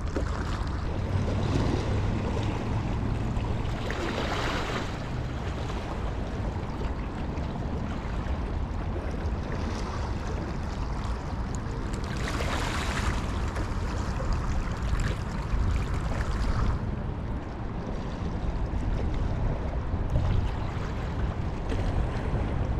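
Small sea waves washing against rocks, with wind rumbling on the microphone. The wash swells louder about four seconds and again about thirteen seconds in.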